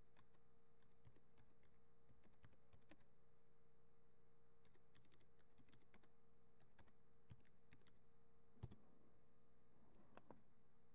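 Faint typing on a computer keyboard: irregular key clicks, with one louder click about three-quarters of the way through, over a faint steady hum.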